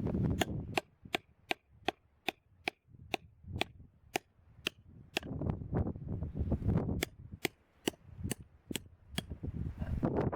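A run of sharp, evenly spaced knocks, about two a second, over a low rumble.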